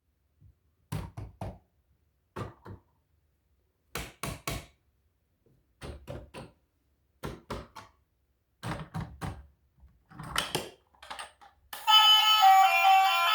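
Knocking in short groups of two or three knocks, repeated every second or so, then guitar music starts near the end.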